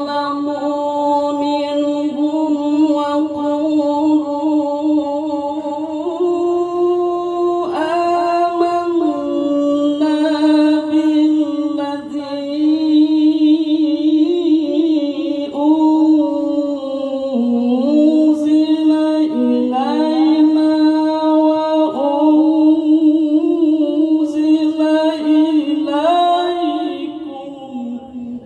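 A male qari chanting Quran recitation unaccompanied, drawing out long melismatic held notes with ornamented turns and stepwise shifts in pitch. The phrase tails off near the end.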